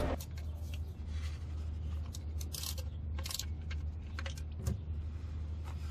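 Light, irregular metallic clicks and scrapes from a ratcheting wrench and gloved fingers working a car's 14 mm oil-pan drain bolt loose, over a low steady hum.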